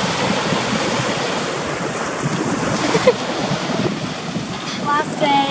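Small waves breaking and washing up on a sandy beach, with wind buffeting the microphone.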